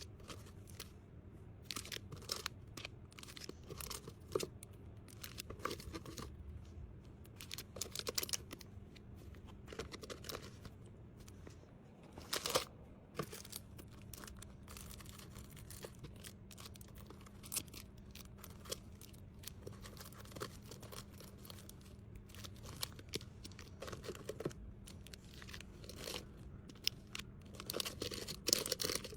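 Plastic packaging crinkling and tearing as small items are handled and packed, in irregular rustles and light clicks with a louder one about twelve seconds in, over a faint steady hum.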